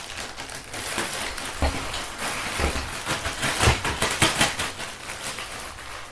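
A plastic bag crinkling as gaming-chair caster wheels are tipped out of it. Several hard knocks come through the rustling as the casters land and bump together.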